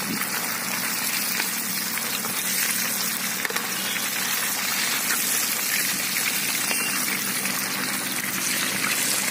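Whole chicken deep-frying in a pot of hot oil, the oil bubbling and sizzling steadily.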